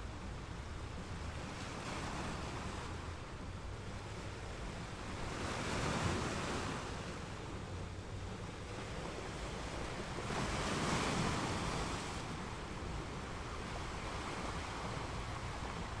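Sea surf breaking and washing over rocks: a steady rushing of water, with two waves swelling louder about six and eleven seconds in.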